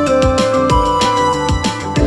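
Background music: electronic track with a steady kick-drum beat, about two beats a second, under sustained synth melody notes.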